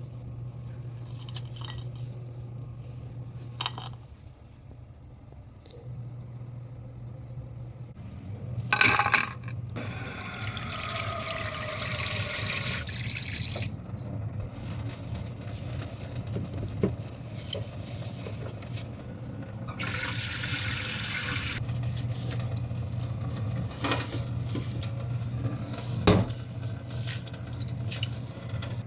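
Water running in two spells, about ten and twenty seconds in, with scattered clinks and knocks and a steady low hum underneath.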